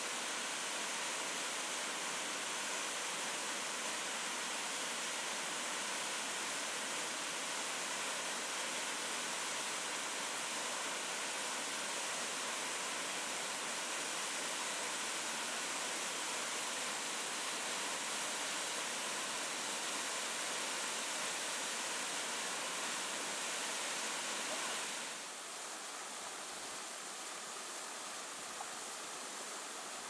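Waterfall rushing down a narrow rock chute, a steady full rush of water. About 25 seconds in it cuts to a slightly quieter, steady rush from a different, taller waterfall.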